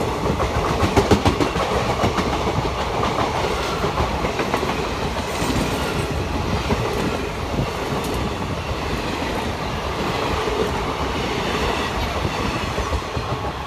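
Indian Railways passenger train of ICF coaches running past at speed. The wheels clatter over the rail joints with a quick run of clicks in the first few seconds, over a steady rumble and rattle of the coaches.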